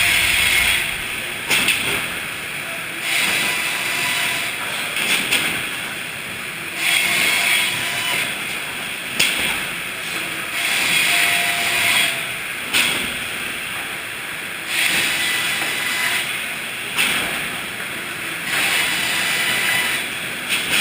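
Sawmill machinery working hardwood: a steady mechanical din with a loud hissing surge every three to four seconds and a few sharp clicks and knocks between the surges.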